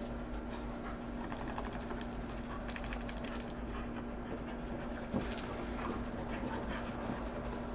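Dogs panting and scuffling as they play-fight, with clusters of light clicks through the middle and a steady low hum underneath.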